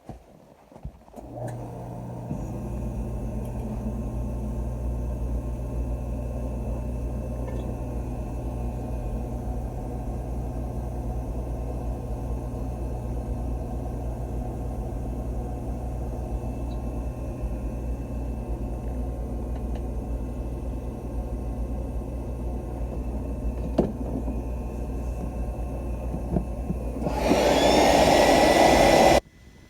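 Oil furnace burner starting and running: a motor hum comes on about a second in, a steady low rumble fills in a second later and holds. Near the end a louder rushing noise rises for about two seconds and then cuts off suddenly.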